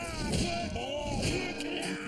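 Cartoon soundtrack music with gliding pitched sound effects.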